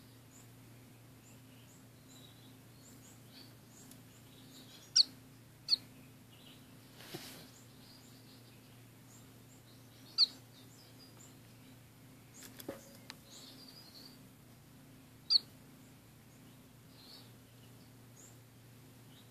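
Pet finches, orange-cheeked waxbills and a society finch, calling in a cage: four sharp, short chirps stand out, with fainter high twittering between them. A steady low hum runs underneath.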